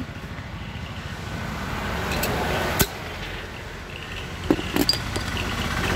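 Low steady machine hum, with one sharp click about halfway through and a short run of clicks and knocks near the end, as a metal bottle opener and a glass soda bottle are handled.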